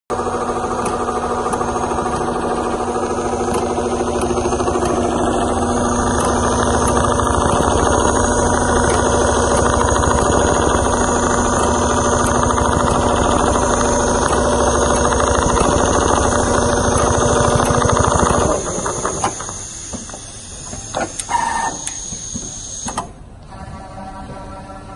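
Industrial CNC quilting sewing machine stitching leather at speed, a dense, rapid needle-stroke clatter. The stitching stops suddenly about 18 seconds in, followed by a few clicks as the head comes to rest.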